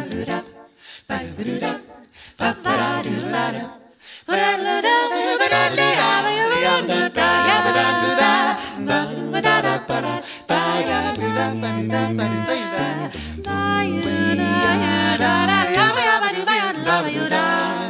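Four-voice a cappella group singing close harmony with no lyrics heard: a low vocal bass line of held notes under higher voices that bend and waver. It is sparse and quieter for the first few seconds, then fills out into full harmony.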